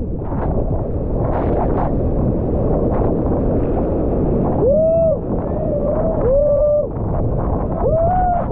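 Rushing whitewater and wind buffeting the microphone during a kayak run. In the second half a voice gives several short, drawn-out calls that slide up and down in pitch.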